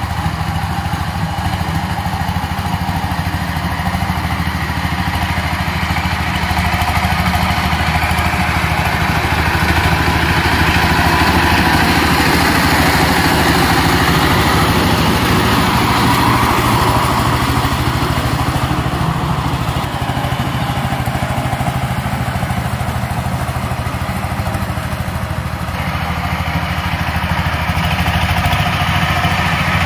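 Walk-behind power tiller's single-cylinder diesel engine running steadily under load while its rotary tiller churns the soil. It grows louder through the middle as the machine comes closer, then eases off as it turns away.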